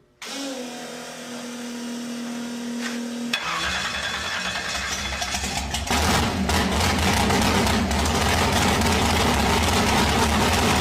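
A muscle car's big engine being started: a steady whine for about three seconds, then the engine fires and runs loudly, growing louder about six seconds in.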